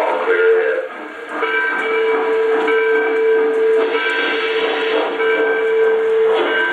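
Lionel Union Pacific Big Boy model locomotive's sound system blowing a steam whistle in one long, steady blast of about five seconds, starting a little over a second in, over a steam hiss, as the engine begins to pull away.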